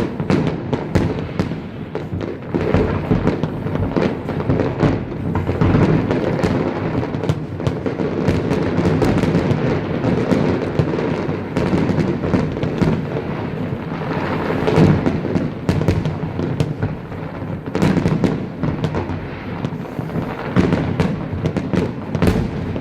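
A fireworks display in a dense, continuous barrage: overlapping shell bursts with heavy rumbling booms and sharp crackling reports following one another without pause.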